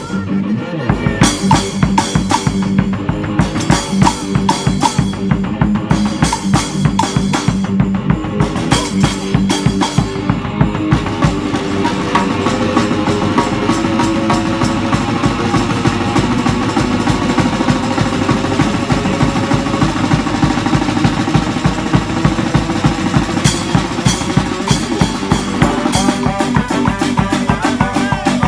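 Street brass band playing live, with saxophones, brass, electric guitar and a cart-mounted bass drum and snare kit. The drums carry a fast beat for about the first ten seconds, then the horns come in with long held notes over it.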